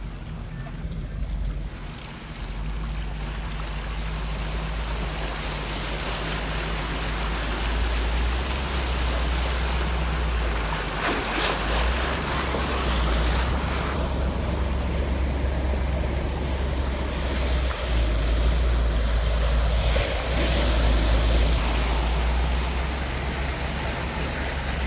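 A vehicle pushing through deep street floodwater: a steady rush of churning water over a low rumble, with a few brief louder surges of spray.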